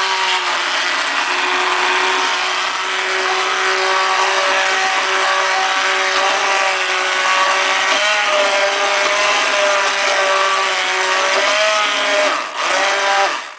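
Electric immersion blender running on its low speed, a steady motor whine as it purées butternut squash soup in a pot. The pitch wavers a little as the blade works through the soup, and the motor dips briefly near the end, then stops.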